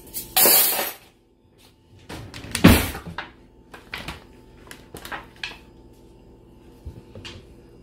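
A kitchen door, cupboard or oven, being worked: a rough scraping noise near the start, a loud thump a couple of seconds later, then several light clicks and knocks.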